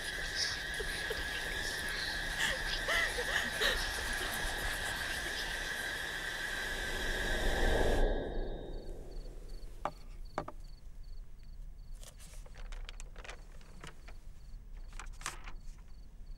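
Steady high chirring of night insects in a grassy field, under a low swell that builds and cuts off abruptly about halfway through. Then a quiet room with a faint, regular high chirp and a few soft clicks.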